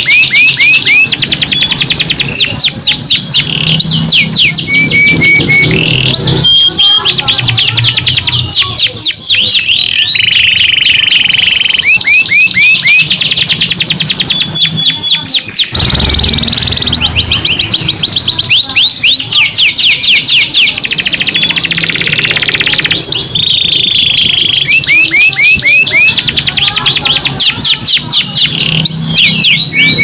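Two domestic canaries singing without pause: long rolling trills of rapid, repeated rising notes, broken up by held whistled tones.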